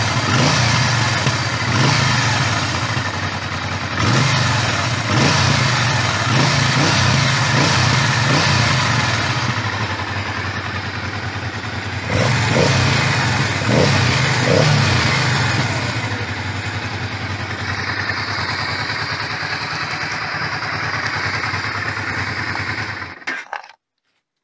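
Honda NTV650 Revere's V-twin engine running at idle. Its revs rise briefly with the throttle several times in the first fifteen seconds, then it runs steadily until the sound cuts off suddenly near the end.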